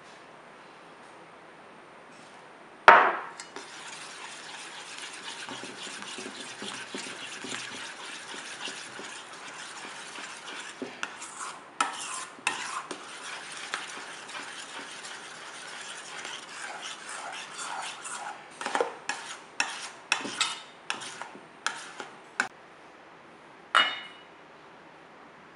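Metal spoon stirring peach juice and gelatin in a stainless steel bowl, scraping steadily around the bowl with frequent clinks against its side, more of them in the second half. A single sharp knock comes about three seconds in, and one last clink near the end.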